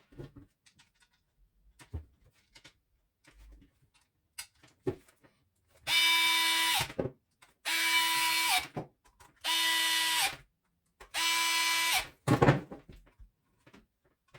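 Small cordless power screwdriver run in four short bursts of about a second each, each winding down with a slight drop in pitch as it stops: screws being driven to close up the charger housing. Light handling clicks come before the bursts, and a sharp clunk follows the last one.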